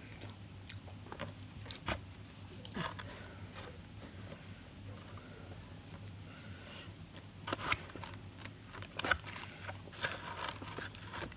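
Paper food wrapping crinkling and rustling as it is handled, in scattered short bursts that get busier and louder in the second half, over a faint steady low hum.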